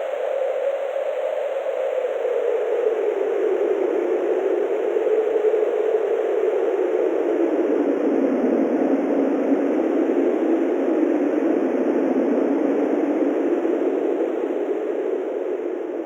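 Synthesized wind: filtered, reverberant noise with a hollow whooshing band that slowly drops in pitch, then holds steady and starts to fade near the end.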